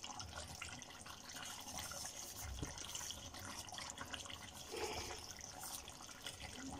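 Faint, steady sizzling and bubbling of chicken curry cooking in a clay handi on a gas burner, with fine crackles throughout and a soft low thump about two and a half seconds in.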